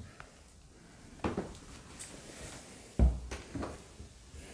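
Footsteps on a bare wooden floor: a few irregular steps, the heaviest about three seconds in.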